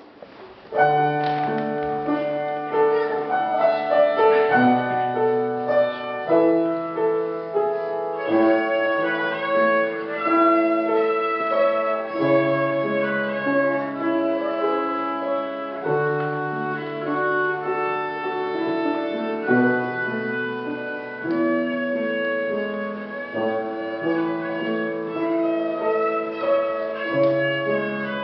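A child playing a melody on the violin with Seiler grand piano accompaniment; the music starts about a second in.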